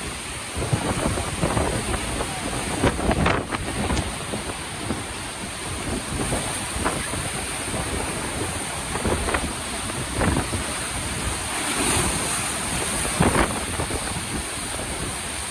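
Large Lake Michigan storm waves crashing and surging against rock cliffs and a sea cave, mixed with strong wind buffeting the microphone. The rushing roar rises and falls, with a few louder moments.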